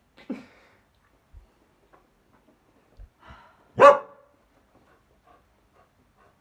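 An Africanis dog gives a single loud bark about four seconds in, a wary bark at a doll he is afraid of. A shorter, softer noise comes near the start.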